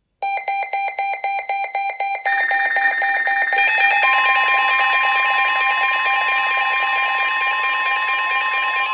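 Electronic emergency alert tones: rapid, evenly pulsed beeping starts suddenly. After about two seconds, more layered tones join, and a steady tone comes in near the middle.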